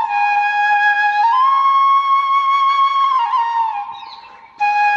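Background music led by a flute playing a slow melody of long held notes. The note fades away about four seconds in, and a new phrase comes in sharply just before the end.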